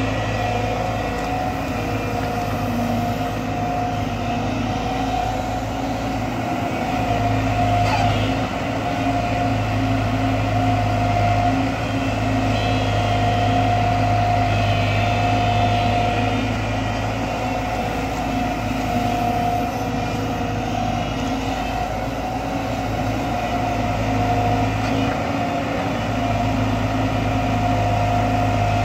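JCB tracked excavator's diesel engine running steadily as the machine digs in wet mud. A steady higher tone sits above the engine's low drone, and the level rises and falls a little.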